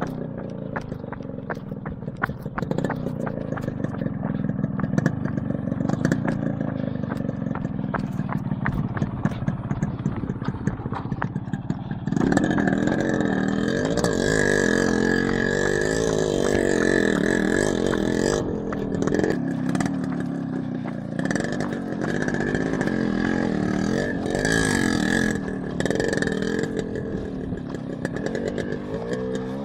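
Yamaha RX 100's two-stroke single-cylinder engine running under load on a steep hill climb. About twelve seconds in it gets much louder, its revs rising and falling as the throttle is worked.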